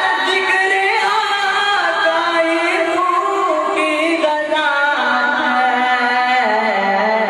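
A naat, an Urdu/Punjabi devotional song in praise of the Prophet, being sung in long held notes that glide and waver from pitch to pitch.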